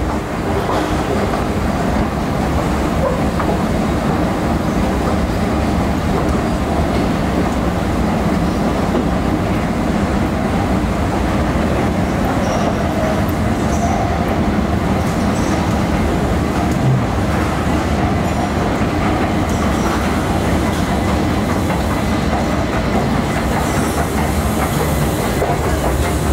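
Escalator running steadily, a continuous low mechanical rumble.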